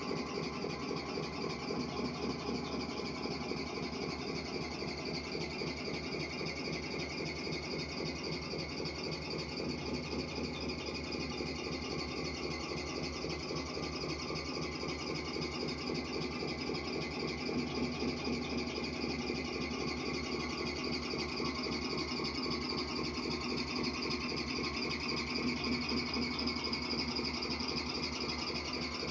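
Simulated V8 truck engine idling steadily from a radio-controlled truck's sound unit, with a fast, even throb.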